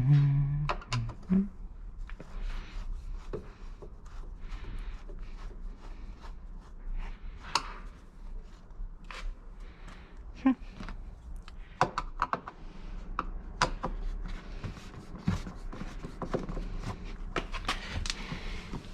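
Irregular clicks, taps and knocks of hand tools, screws and trim pieces being handled while interior trim is removed from a car. A short pitched creak or grunt sounds right at the start.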